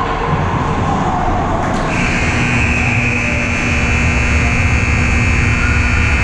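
Ice rink buzzer sounding: a loud, steady electronic tone that starts abruptly about two seconds in and holds for nearly five seconds, over the arena's constant low rumble.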